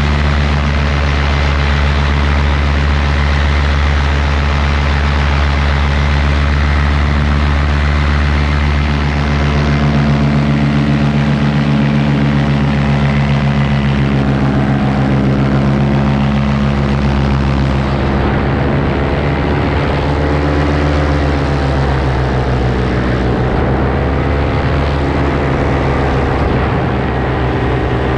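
Paramotor engine and propeller running steadily under power, its pitch dipping and rising a few times in the second half as the throttle is eased and opened.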